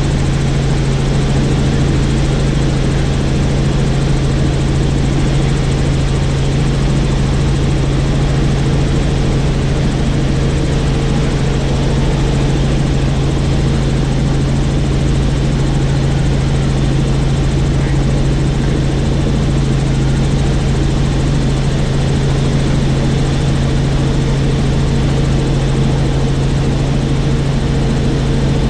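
Helicopter in steady flight: a constant, loud drone of rotor and engine with a strong, unchanging low hum.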